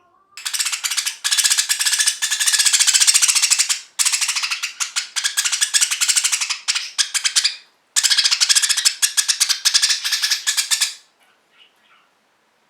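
Young budgerigar giving a harsh, rapidly pulsed rasping screech in long bursts, breaking off briefly about 8 seconds in and stopping about 11 seconds in.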